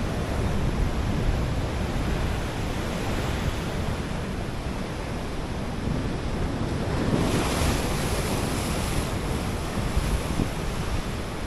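Big ocean waves breaking and washing up the beach, with wind buffeting the microphone. A larger wave surges in about seven seconds in.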